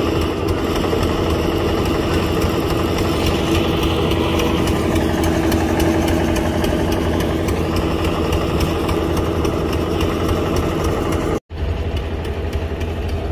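An engine idling steadily, with a constant low hum that cuts out for an instant about eleven and a half seconds in, then carries on unchanged.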